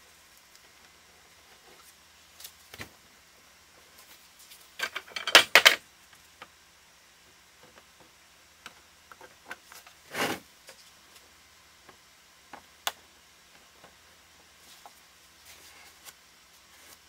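Handling noises of plastic work: scattered clicks and knocks as PVC elbow fittings and a glue container are handled against a plastic bucket, with a cluster of loud clatter about five seconds in and a brief noisy burst about ten seconds in.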